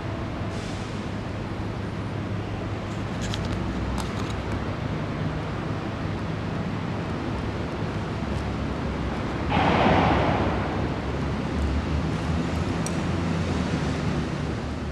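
Wind noise on the camera microphone: a steady rushing with a low rumble, swelling louder for about a second roughly ten seconds in, with a few faint clicks about three to four seconds in.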